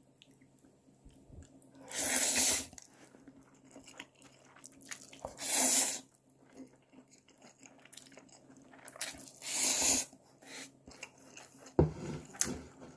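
Bibim-myeon noodles being slurped, three long slurps a few seconds apart, with quieter chewing between. A few light clicks near the end.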